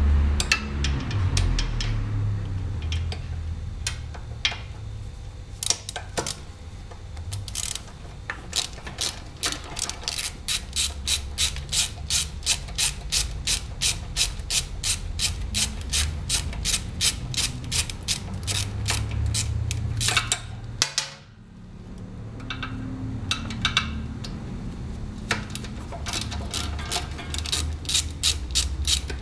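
Hand ratchet wrench clicking in quick, even runs, about three clicks a second, as it is swung back and forth to loosen the stock muffler's mounting bolts on a Honda Today scooter, with a short pause a little past the middle.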